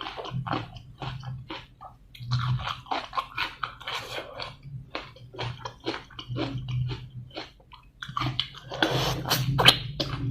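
A person chewing and crunching food close to the microphone, with irregular crisp crunches several times a second and a short pause near the end.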